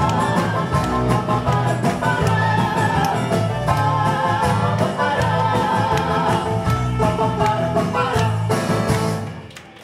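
Live band of clarinet, bayan accordion, acoustic guitar, bass and drums playing the last bars of a song, with a woman singing over it; the music dies away near the end.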